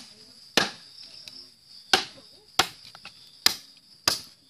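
A 15-inch SUP9A spring-steel knife chopping into a wooden pole: five sharp strikes at slightly uneven intervals, roughly one every second. A steady high insect buzz runs behind them.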